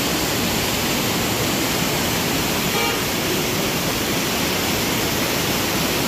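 Steady rushing of a swollen, muddy stream pouring over a small weir and tumbling around boulders. A faint, brief tone sounds about three seconds in.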